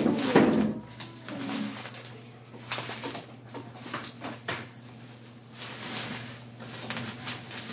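Bubble wrap and plastic rustling and crinkling as it is pulled off a long cardboard box by hand, with the box being handled, over a steady low hum.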